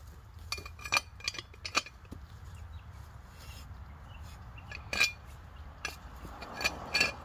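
Sharp metallic clinks of a rebar bar knocking against a steel ground screw as it is turned by hand, a cluster of four in the first couple of seconds and a few more near the end.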